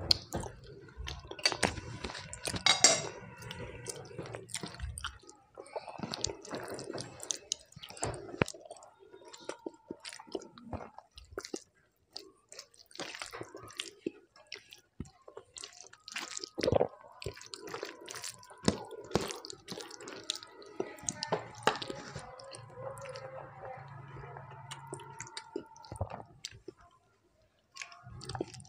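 Close-miked chewing of a mouthful of rice, with many small sharp mouth clicks, and now and then soft squelches of fingers mixing rice with a mashed side dish on a steel plate.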